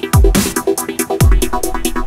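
Electronic dance music with a fast beat: two deep bass kicks that drop in pitch, crisp high hits and a repeating synth line.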